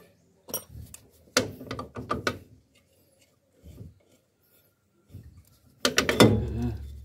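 Metal clicks and knocks from the steel brake drum and a hand tool being handled, then, about six seconds in, a louder scraping rub as the drum is worked off over brake shoes that fit a little too tight.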